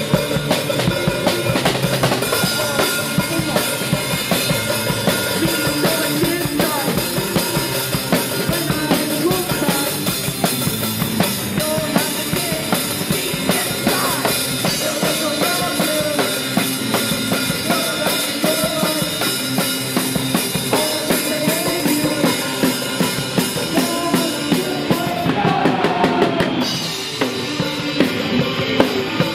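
Live rock band playing with the drum kit loud and close, the kick drum and snare keeping a steady beat under the other instruments.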